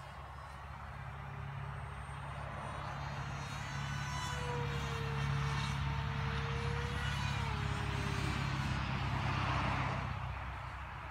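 Wraith Micro RC plane's motor and propeller whining as it flies past. The sound grows louder towards the middle, the pitch dips as it goes by, and it fades near the end, over a steady low rumble.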